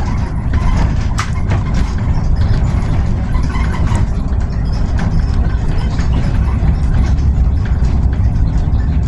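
Cabin noise inside a Solaris Urbino 18 Electric articulated bus on the move: a steady low rumble of tyres and road, with scattered rattles and clicks from the bodywork and fittings, one sharper click about a second in.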